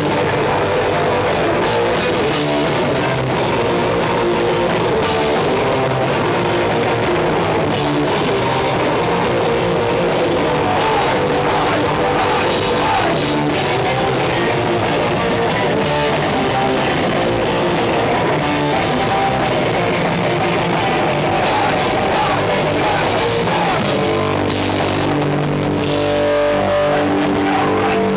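Hardcore punk band playing live at full volume: distorted electric guitars, bass and drum kit. Near the end the playing settles into held, ringing chords.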